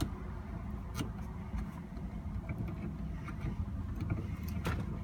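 A few sharp clicks of small metal parts being worked by hand while fitting a shifter clip, the loudest near the end, over a steady low hum.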